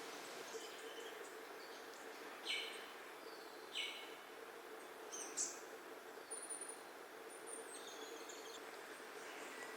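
Forest birds calling: three short, sharp notes a second or so apart, then thin high whistles and a few softer notes, over a steady background hiss and a faint steady hum.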